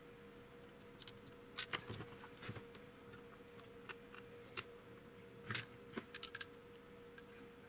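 Scattered light clicks and taps, about a dozen, as a soldering iron and tools work on the solder side of a TV circuit board to desolder capacitors, over a faint steady hum.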